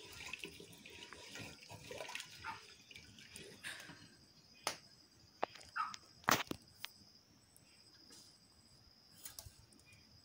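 Wooden spatula stirring thin, watery lobia (black-eyed pea) dal in a metal pot: soft liquid sloshing with scattered sharp knocks, the loudest a little past the middle.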